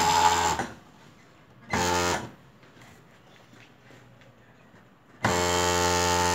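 Voltex H8 industrial overlock sewing machine running at high speed in short bursts, a steady, even-pitched hum. One brief run at the start, another about two seconds in, and a longer run that begins about five seconds in.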